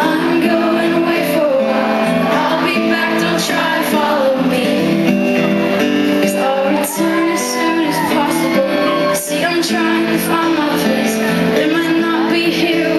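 Live acoustic rock music: strummed acoustic guitars carrying steady chords under a female lead vocal singing a slow melody.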